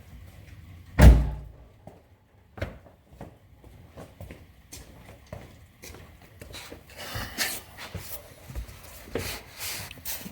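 A car door shutting with one heavy thump about a second in, followed by scattered light clicks and rustling handling noises.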